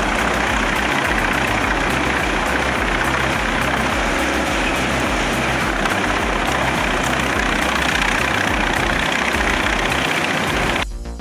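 Truck-mounted Musmax WT11 wood chipper running steadily, a loud even rush of engine and chipper noise that cuts off abruptly near the end.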